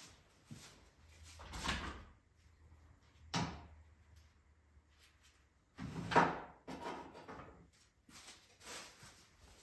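Metal tools and parts being handled: a rattle nearly two seconds in, a sharp clank about three and a half seconds in, and a louder, longer rattle about six seconds in, with faint clicks between.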